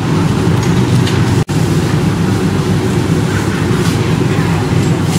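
Steady, loud low rumble of background noise at a street food stall, broken by a momentary dropout about a second and a half in.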